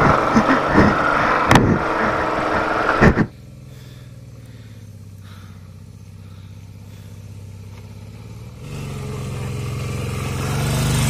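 Royal Enfield Bullet's single-cylinder motorcycle engine running on a rough, rocky track. For about the first three seconds it is loud, with sharp knocks and rattles. Then it drops suddenly to a quieter steady engine note, which grows louder again over the last couple of seconds.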